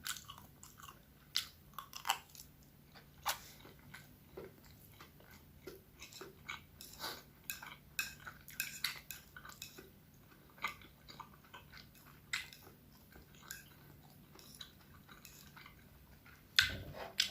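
A person chewing and eating close to the microphone: soft, irregular mouth smacks and small clicks, a few every second, with short quiet gaps.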